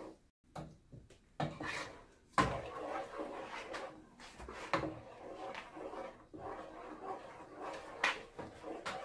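Wooden spoon stirring thick cheese sauce in a pot, scraping around the bottom in repeated strokes. A few sharper knocks stand out, the loudest about two and a half seconds in.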